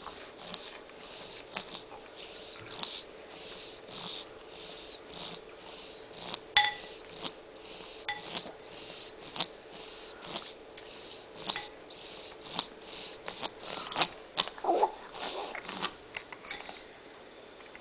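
A nose sniffling: repeated short sniffs, about one a second, coming faster and louder in the last few seconds, over a faint steady hum.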